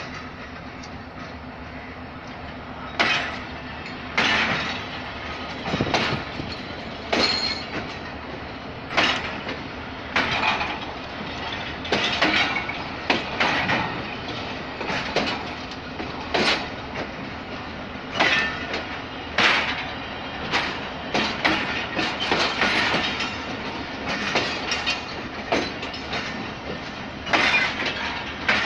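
Pakistan Railways passenger coaches of the Tezgam Express rolling slowly past, being pushed in reverse, wheels knocking over rail joints about once a second or so over a steady rumble.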